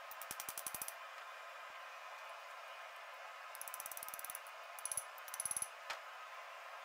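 Hammer striking a punch into a hot titanium bar on a steel anvil: short runs of quick, ringing metallic taps, about a dozen a second, in several bursts, with the loudest few a little past the middle.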